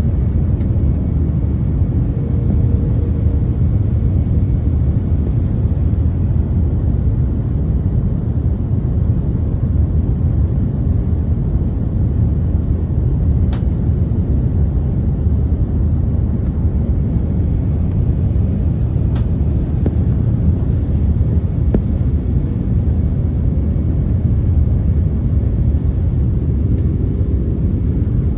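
Airliner cabin noise in flight: a steady low rumble of engines and rushing air, heard from inside the cabin, with two faint clicks near the middle.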